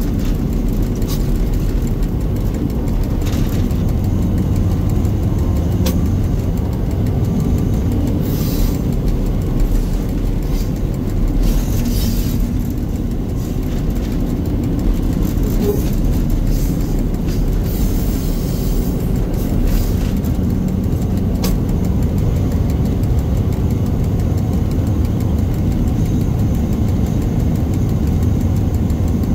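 Shunting diesel locomotive running steadily under load, heard from its cab: a constant low engine drone and wheel-on-rail rumble as it hauls a rake of coaches slowly over the track. A few brief hisses rise over the rumble.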